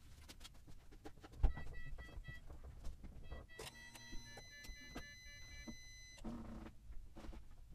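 Fast-forwarded sound of the steering wheel being turned from lock to lock with the bonnet open, to pump old power-steering fluid out of the rack: scattered clicks and knocks, with a thump about a second and a half in. From then until about six seconds in, a run of high steady tones sounds, some broken into short pulses.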